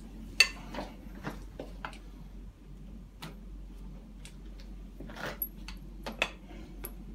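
Irregular light clicks and knocks of a stroller's handle bar and frame parts being shifted by hand to line up the screw holes; the loudest is a sharp click about half a second in. A steady low hum runs underneath.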